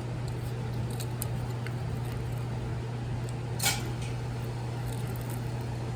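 A steady low hum of a machine or fan in the workshop, with a single short scraping rustle a little past the middle and a few faint ticks, from handling the transformer and its copper windings.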